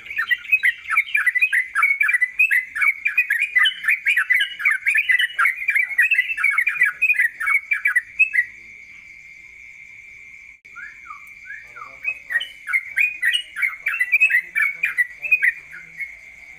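Caged songbird singing a fast, rolling run of chattering notes for about eight seconds, then, after a pause filled by a steady high whine, a few falling notes and another fast run near the end.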